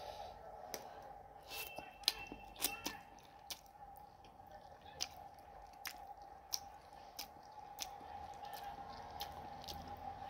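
A person eating stir-fried instant noodles with chopsticks, close to the microphone: slurping and chewing, with sharp wet mouth clicks at irregular intervals.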